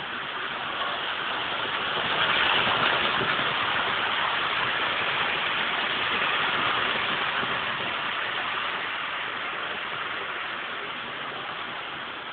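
00 gauge model train running past on its track. The steady whirr grows loud about two seconds in, then slowly fades as the train goes by.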